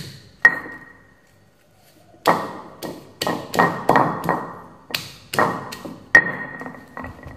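Stone pestle striking lemongrass stalks against a stone mortar to bruise them: one knock, a pause of about two seconds, then a run of about a dozen knocks, roughly two a second, each with a short ringing ping.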